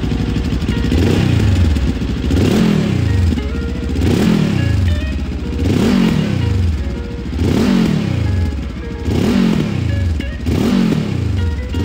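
Benelli TRK 702 X parallel-twin engine free-revving through a GPR Furore Evo4 Nero aftermarket silencer. It gives about seven blips of the throttle, one every second and a half or so, each rising in pitch and dropping back.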